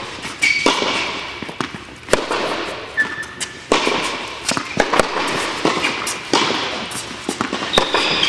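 Tennis balls struck by rackets and bouncing on an indoor hard court during a rally: sharp pops at irregular intervals, each echoing through the hall. A few short high squeaks are mixed in.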